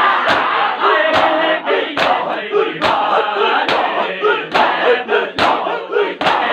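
A crowd of men performing matam, striking their bare chests with their palms in unison: eight evenly spaced slaps, a little over one a second, over a crowd of men shouting.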